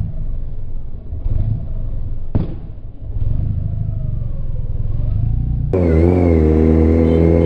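Kawasaki Z900 inline-four engine running at low revs under way, a steady low rumble with one sharp click a little over two seconds in. About six seconds in, a sudden, louder, steady pitched drone takes over.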